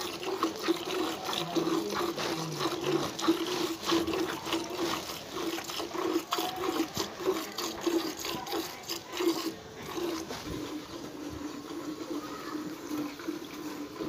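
Milk squirting from a cow's teats into a metal bucket of milk during hand milking, a fast, rhythmic run of squirts hissing into the pail.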